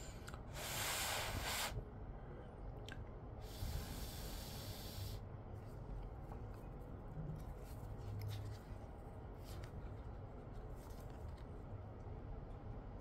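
Two hissing blasts of compressed air, the first about a second long and the second nearly two seconds, blowing isopropyl alcohol dry off a phone part. A few faint handling clicks follow.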